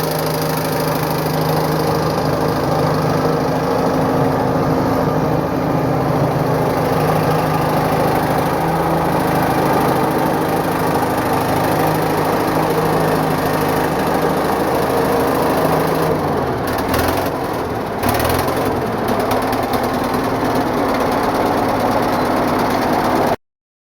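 Caterpillar 955 track loader's diesel engine running steadily. Its pitch dips and comes back up briefly near the end, then the sound cuts off suddenly.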